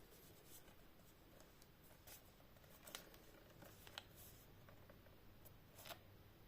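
Faint handling sounds of a Blu-ray steelbook case and its packaging: a few soft rustles and small clicks, the sharpest about three, four and six seconds in, over a low steady room hum.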